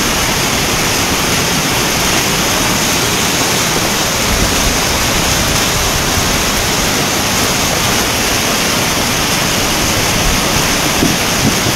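Fast muddy floodwater rushing and churning down a flooded street: a loud, steady rush of turbulent water.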